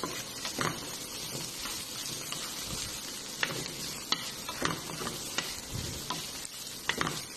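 Chicken pieces and onion sizzling as they sauté in a nonstick frying pan, stirred with a spatula that taps and scrapes against the pan every second or so.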